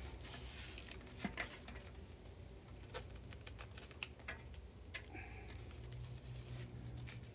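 Handling noise of repair tape being wrapped around a muffler: scattered faint clicks and crinkles over a low steady hum.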